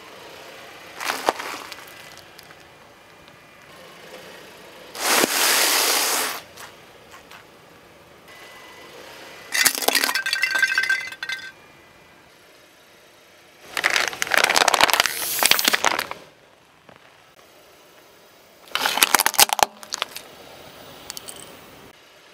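A car tyre rolling over and crushing small objects on asphalt, one after another: five separate bursts of crunching and cracking, each a second or two long, with quiet in between.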